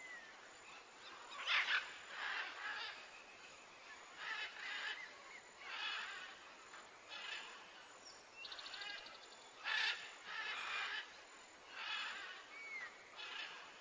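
Faint bird calls: short, rough calls about once a second, with a few brief whistled notes and a short rattle partway through.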